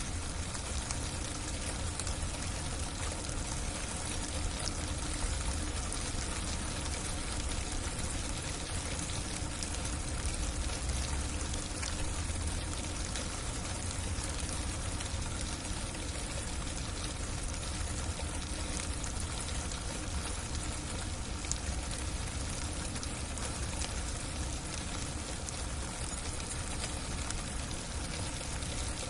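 Freezing, icy rain falling steadily on a roof: a dense, even patter of fine ticks over a low rumble.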